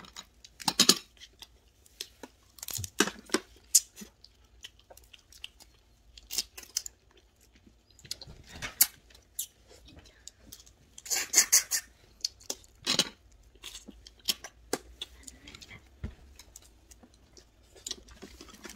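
Red snow crab shells and legs being cracked and picked apart by hand at the table, with irregular sharp cracks and clicks and a few louder crunches, the longest about 11 seconds in.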